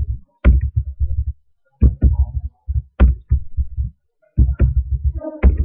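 Computer keyboard typing in quick runs of keystrokes with short pauses between them; each keystroke is a dull thump with a click on top.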